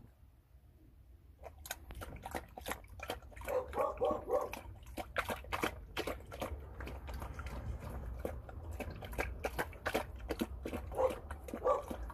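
A dog eating soupy seafood noodles from a bowl: quick wet laps, slurps and tongue clicks that start after about a second and a half of quiet.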